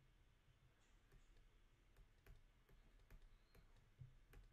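Near silence with faint, irregular light clicks and taps of a stylus writing on a drawing tablet.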